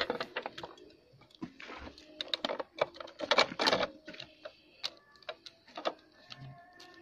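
Irregular clicks, taps and rustling of a stiff plate sheet being handled and pressed against a motorcycle's rear undertail. A hand brushes close to the microphone right at the start, and the loudest rustle comes about three and a half seconds in.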